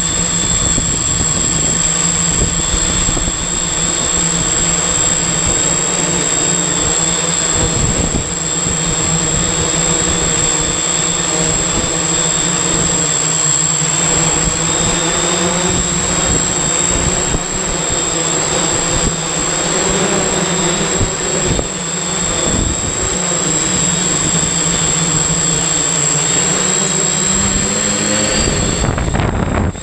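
Octocopter's electric motors and propellers whirring steadily, heard from the camera mounted on its frame. Near the end the pitch rises a little as the craft comes down close to the ground.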